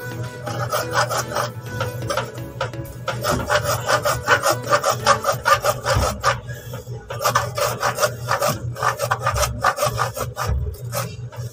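Bare hacksaw blade sawing back and forth through an orange PVC drain pipe in a sink's drain opening: quick, rhythmic scraping strokes with a couple of short breaks.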